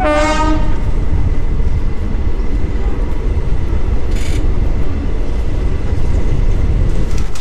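Express passenger train running along the track: a loud, steady rumble of wheels and rushing air heard from an open door of the moving coach, with a brief high hiss about four seconds in.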